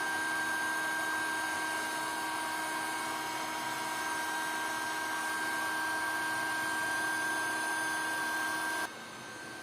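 A small electric power tool running steadily with a constant whine, switched off abruptly near the end, leaving a faint hum.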